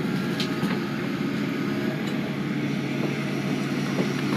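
An engine running steadily at idle, a constant low hum with no change in pitch.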